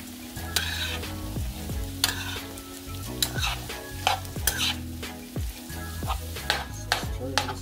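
Metal spoon stirring and scraping fried potato chunks around a nonstick frying pan, in repeated strokes, while the potatoes and freshly added buttery spread sizzle in the hot fat.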